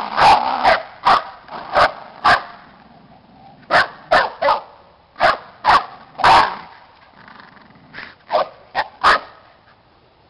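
Dog barking in short, sharp barks, about fifteen in clusters of one to three, during rough play over a ball.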